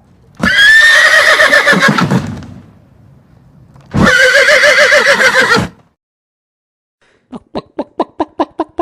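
Horse whinnying twice, each call about two seconds long with a quavering, shaking pitch, the first trailing off at the end. Near the end a quick run of short, sharp animal calls begins.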